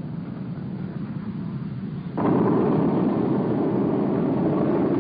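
SEPECAT Jaguar jets' Adour turbofans running at full afterburner for take-off: a steady jet noise that steps up louder about two seconds in.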